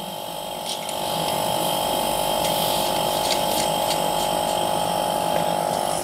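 A spare hermetic refrigerator compressor, rigged as a vacuum pump, running with a steady hum as it evacuates the fridge's sealed system through the gauge manifold. It grows a little louder over the first second or two, then holds steady.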